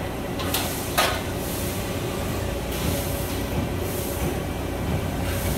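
Steady low rumble and hum of the Bystronic Xpress 80 hydraulic press brake running. A small click comes about half a second in, then a sharper, louder clack about a second in.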